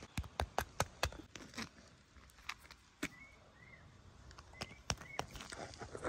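Clip-clop of hoofbeats, quick sharp clicks that die away after about a second and a half, followed by a few scattered clicks. Faint short bird chirps come in the quieter second half.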